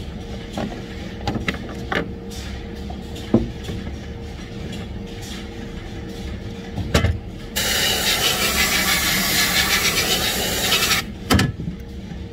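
Rubber hoses knocking and rubbing as they are handled on a wooden jig, over a steady factory hum. About seven and a half seconds in, a compressed-air blow gun hisses loudly for about three seconds, starting and stopping abruptly.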